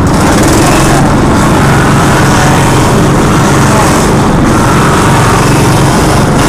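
Motorized coconut grater running steadily, shredding coconut flesh as the halves are pressed against its spinning grater.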